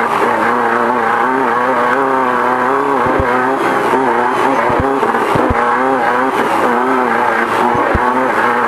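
Off-road race car's engine running hard, its pitch rising and falling with the throttle, heard from inside the car. A few short low thumps come through in the middle and near the end.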